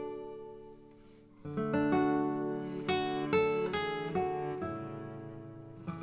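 Background music on acoustic guitar, plucked and strummed chords; it fades low about a second in, then the strumming picks up again.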